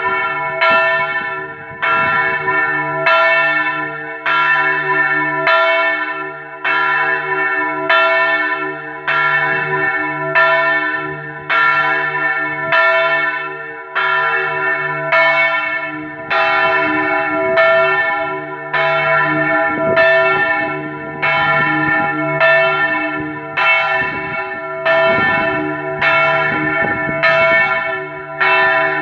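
A single Marinelli church bell cast in 1876 and tuned to a sharp E, swinging in its belfry and ringing in a steady stroke a little more than once a second. The ring of each stroke hangs on into the next.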